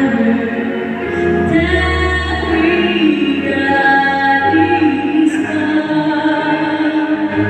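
A woman singing a slow song with instrumental accompaniment, amplified through loudspeakers.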